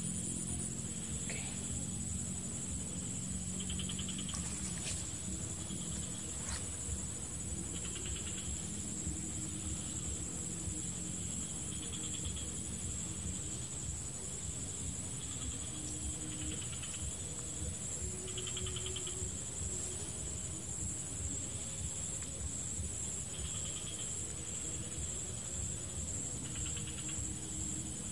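Tropical swamp insect chorus: a continuous high-pitched trill, with a second insect's rapid pulsed chirps coming in short bouts about every two seconds.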